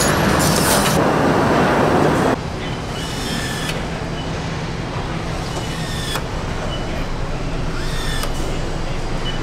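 Car assembly line noise. A loud steady rush lasts about two seconds and then cuts to a quieter steady hum of the line. Over the hum come several short rising whirs of a handheld electric nutrunner driving fasteners.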